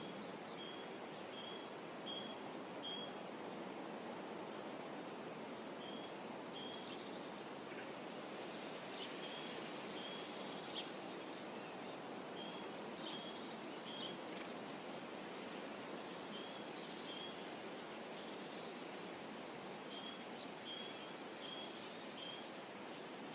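A small bird sings short phrases of quick two-pitched notes, a higher and a lower note alternating, repeated every few seconds over a steady wash of ambient outdoor noise, such as water rippling along the shore.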